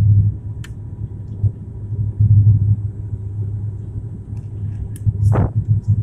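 Airliner cabin noise on final approach: a loud, uneven low rumble of engines and airflow that surges every second or so. About five seconds in there is a brief falling squeak.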